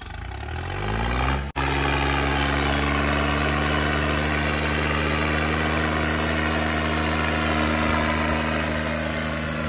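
John Deere tractor's diesel engine revving up over the first second and a half, then held at steady high revs under heavy load while pulling against another tractor in a tug-of-war. The sound cuts out for a moment about a second and a half in.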